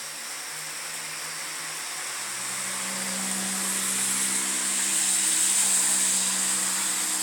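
A vehicle passing on a rain-wet road: tyre hiss swells over several seconds and starts to ease near the end, over steady rain. A low, steady hum runs underneath.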